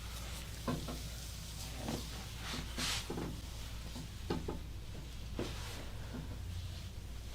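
Hands rubbing and sliding over skin in a massage, a run of soft irregular swishes, the strongest about three seconds in, over a steady low hum.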